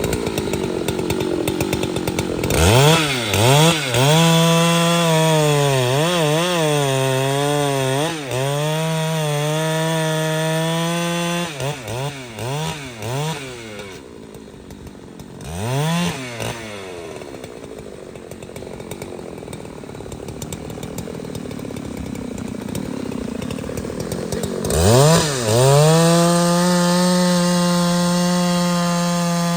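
Large two-stroke chainsaw revved up from idle a couple of seconds in, blipped up and down, then held at full throttle for several seconds. It drops back to idle around the middle with a few short blips, and is revved to full throttle again near the end.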